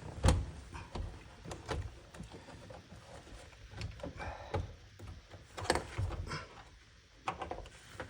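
Irregular clicks, knocks and clatter of hands and tools working on the dishwasher's plastic and metal parts, with a few sharper knocks now and then.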